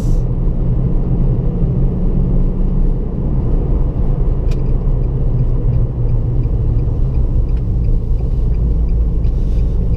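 Nissan Fairlady Z (Z33) 3.5-litre VQ35DE V6 with an aftermarket HKS SSM muffler, running at low, steady revs while driving, heard from inside the cabin as a steady low drone with road rumble.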